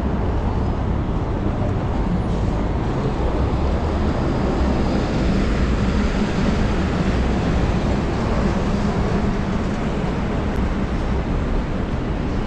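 Steady city traffic and road noise heard while riding a bicycle, with wind rumbling on the microphone.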